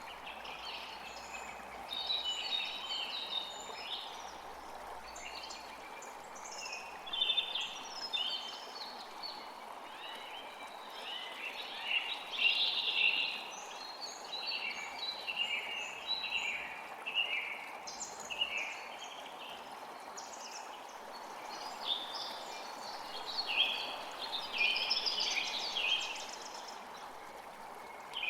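Forest creek flowing steadily, with songbirds singing over it in frequent short chirping phrases.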